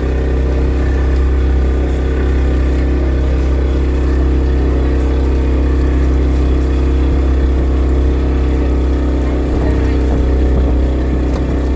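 A motor engine running at a steady speed: a loud, constant low drone with a steady hum above it, and no change in pitch.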